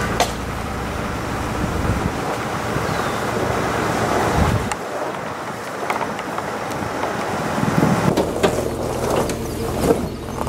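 Pickup truck driving on a rough gravel road, heard from a camera on the hood: wind rushes over the microphone above the engine hum and tyre noise. About halfway through, the low engine hum drops away, and near the end it returns with a few crunches of stones.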